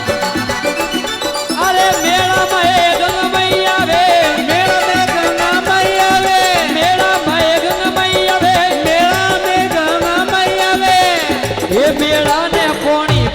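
Instrumental interlude of a Rajasthani folk devotional song: a melody that slides and bends in pitch over a steady repeating rhythm, with no singing.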